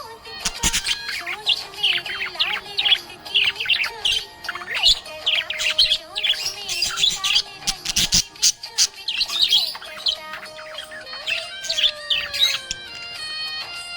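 Budgerigars chirping in quick, dense runs of high chirps, over background music; the chirping thins out near the end.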